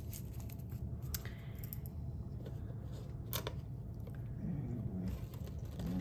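Crinkled brown craft paper being torn and handled, a few crisp crackles and rustles over a low steady hum.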